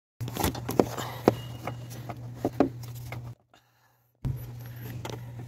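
Light clicks and knocks of engine-bay parts being handled by hand, over a steady low hum; the sound cuts out for under a second a little past the middle.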